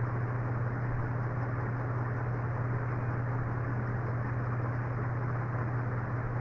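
Steady low hum with an even hiss behind it, without change: background room noise.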